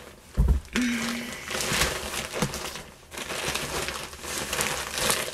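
Plastic shopping bag rustling and crinkling as items are rummaged out of it, with a low thump about half a second in.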